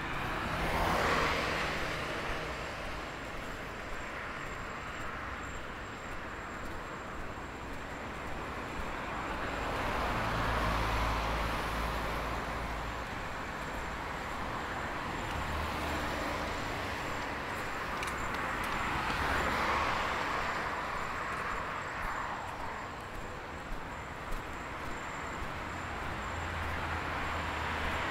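Street traffic: cars passing one after another, each swelling and fading away, three clear passes, over a steady hum of traffic.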